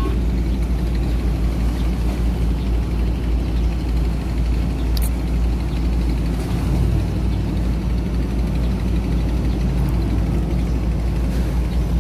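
Steady low rumble of a ship's engines running, mixed with wind rumbling on the microphone; one faint short tick about five seconds in.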